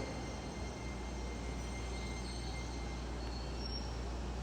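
Steady low rumble of a train at a station platform, a little stronger from about a second in, with faint steady high tones over it.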